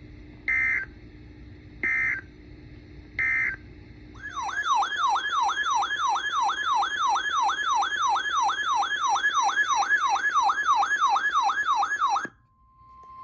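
Emergency alert broadcast tones: three short bursts of EAS (SAME) digital data tone, then a warbling electronic siren alarm that sweeps up and down about three times a second for about eight seconds and cuts off abruptly.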